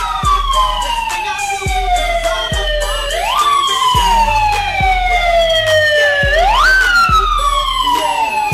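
Hip-hop backing track with a siren-style wail that rises quickly and then falls slowly, repeating about every three and a half seconds, over deep kick-drum hits and a steady bass.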